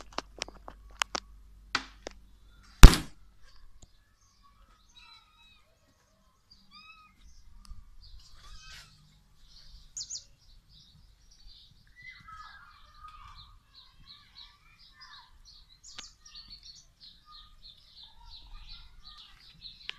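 Handheld camera knocked and rubbed against clothing, giving a few sharp clicks and one loud thump about three seconds in. Then faint, rapid chirping of small birds, several chirps a second, growing busier toward the end.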